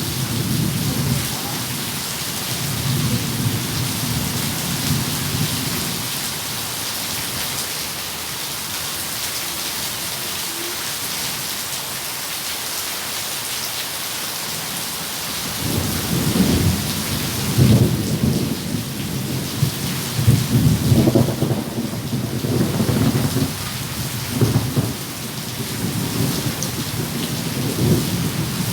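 Steady rain falling with thunder rumbling underneath. Rumbles in the first few seconds give way to a lull of about ten seconds, then a longer stretch of rolling thunder builds from about halfway through, swelling and easing several times.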